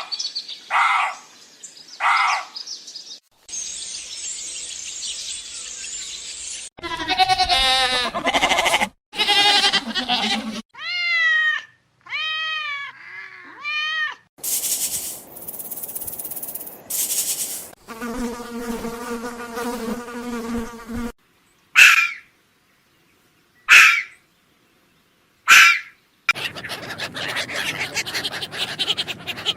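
A run of different animal calls in quick succession: short chirps, a hissing buzz, pitched wavering calls, four arching cries, a steady buzz, then three sharp calls about two seconds apart.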